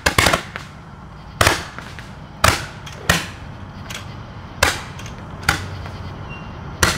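Fireworks going off in about nine sharp bangs at irregular intervals, three close together at the start and then roughly one every second.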